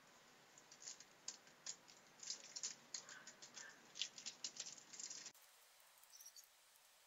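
Makeup brush scratching and swishing in compact powder: faint, quick, irregular brushing strokes that stop suddenly about five seconds in.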